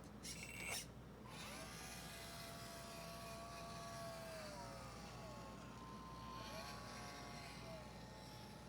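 Small electric hydraulic pump of a 1/12-scale RC hydraulic excavator running with a thin whine, its pitch sliding down and back up several times. A brief rasping burst comes about half a second in, just before the whine starts.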